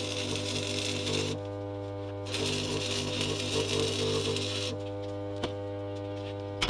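Stick welding with a small AC buzz-box arc welder and 6013 rods: the arc crackles, breaks off about a second and a half in, starts again a second later, and goes out about two-thirds of the way through. A steady electrical hum runs underneath, and there is a single click near the end.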